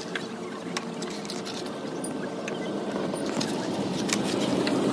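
A motor hum that slowly grows louder, with a few sharp light clicks and rustles as a mesh insect screen is fitted over a van's open rear hatch.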